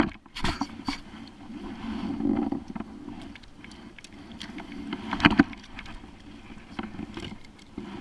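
Fishing gear handled aboard a kayak: scattered clicks and knocks of a rod, reel and landing net against the hull, with one louder knock about five seconds in.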